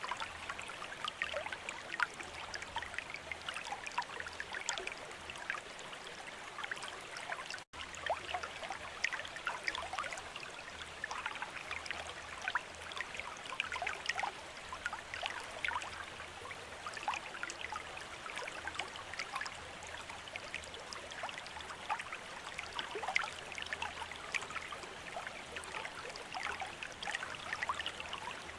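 Bamboo water fountain trickling and splashing steadily into water, a dense patter of small droplets, with a split-second break about eight seconds in.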